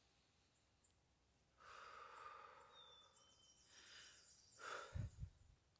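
A person's faint breathing: a long exhale like a sigh, a shorter breath, then a quick sharper breath near the end, followed by two soft low thumps.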